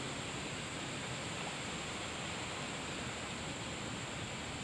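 Steady outdoor creek-side ambience: a constant, even hiss with no distinct events.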